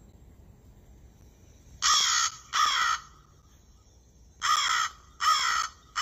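Recorded American crow cawing, played back: a pair of caws about two seconds in, then, after a pause, three more in quick succession.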